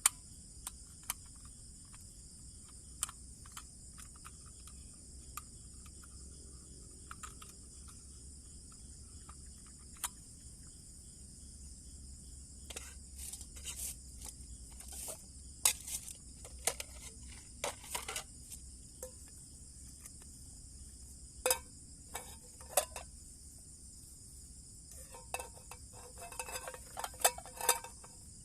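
Crickets and other insects chirring steadily and high, with scattered clinks and knocks of a cooking pot and utensils while rice is readied to cook. The clinks come thickest in a spell about halfway through and again near the end.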